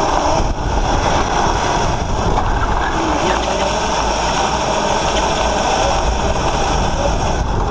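Electric drift kart driving and sliding on asphalt, heard from a camera mounted on the kart: a steady rush of wind on the microphone and tyre noise, with a faint wavering electric motor whine.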